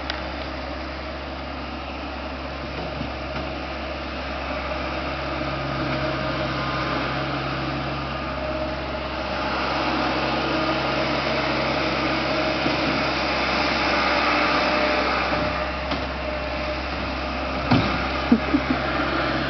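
A vehicle engine running steadily, a little louder through the middle, with a few short knocks near the end.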